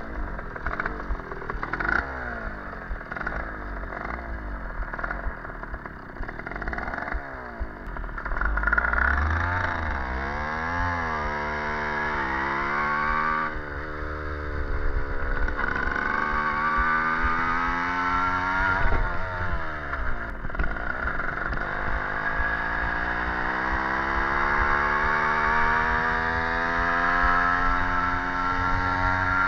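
Stadion S11 moped's 50 cc two-stroke engine running on the road. It runs unevenly at low speed for the first several seconds, then its pitch climbs as the moped speeds up, drops back twice, and rises again in one long, steady climb.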